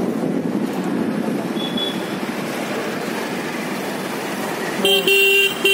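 Steady traffic and moving-vehicle road noise, then about five seconds in a vehicle horn honks, a blast of about half a second with a second one starting right at the end.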